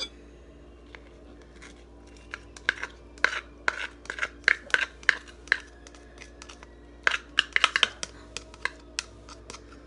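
Minced onion being tapped and scraped out of a small bowl into a bowl of sliced okra: quick, irregular clicking taps in two spells, the second starting about seven seconds in, over a faint steady hum.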